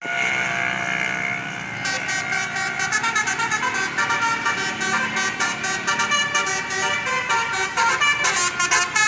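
Indonesian 'telolet basuri' multi-tone bus air horn. It holds a chord for about two seconds, then plays a fast, pulsing run of changing notes.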